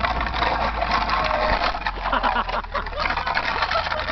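Car towing a person on a toilet seat along a rough, gravelly lane: a low steady engine hum under a dense crackle of grit and scraping from the road surface. The low hum drops away about three seconds in.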